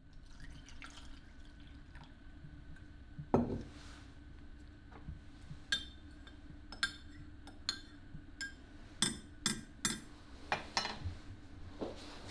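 A metal spoon stirring in a ceramic mug, clinking against its sides in a run of sharp chinks, about one or two a second. A single heavier thud comes about three seconds in.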